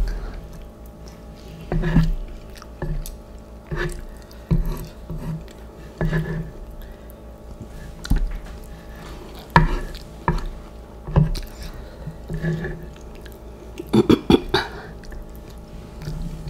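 Close-miked eating of instant noodles: wet chewing and mouth sounds in irregular short bursts, with a quick run of them about fourteen seconds in, over a faint steady hum.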